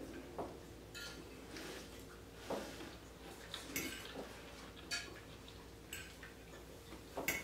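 Soft, scattered clicks and taps of cutlery and takeout food containers being handled, about ten of them spread over several seconds, over a faint steady hum.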